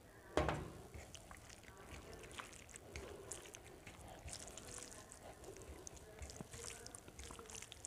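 A stainless steel bowl set down on the table with a sharp clank and a brief ring about half a second in, followed by faint squishing and small clicks of fingers mixing rice and saag on a steel plate.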